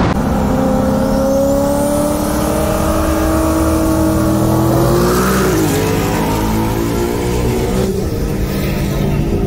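High-performance car engine accelerating hard, its note rising steadily for about five seconds, then dipping as it shifts gear and carrying on at a steadier pitch.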